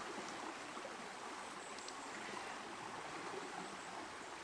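Small woodland stream running steadily: a faint, even rush of water.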